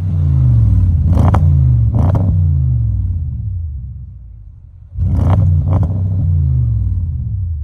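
Audi S7's 4.0T twin-turbo V8 free-revving through its exhaust: two sharp throttle blips about a second in, then the revs settle and fade. Just after halfway it is blipped twice more in quick succession and settles again.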